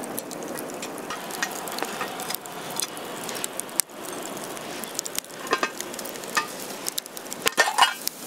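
Food sizzling in a pan, with sharp clicks and scrapes of a utensil that come thicker and louder in the second half.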